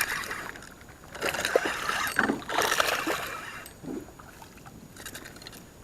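Water splashing and handling noise at a small boat as a small bluegill is played in on the line, in noisy spells, the longest lasting about two seconds from about a second in.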